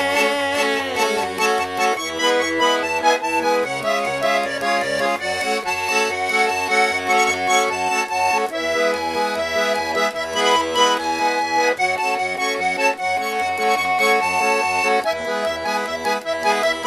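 Instrumental break of a song: an accordion plays a melody over held chords, with a steady pulsing bass beat underneath.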